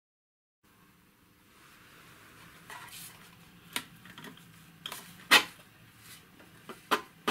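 Metal instrument case being handled on a workbench: scattered clicks and knocks of metal parts, the loudest about five seconds in.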